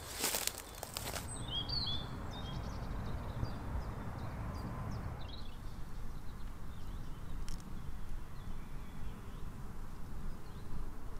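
Footsteps crackling through dry grass and brush for about the first second, then small birds chirping a few times over a steady low outdoor rumble.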